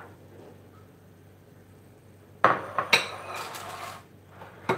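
Small ceramic bowls being moved and set down on a wooden board: a couple of sharp knocks about two and a half seconds in, a short clattering with a ringing edge, and another knock near the end.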